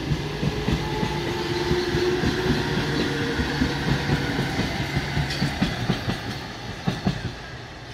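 Indian Railways EMU local train passing close, its wheels clacking over the rail joints above a steady low hum. The sound falls away over the last second or so as the end coaches go by.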